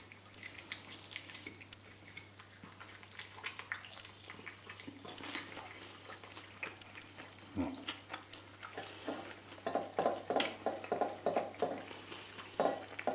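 Eating sounds: chopsticks clicking lightly against a plate, and about ten seconds in, a run of rhythmic chewing at about five chews a second.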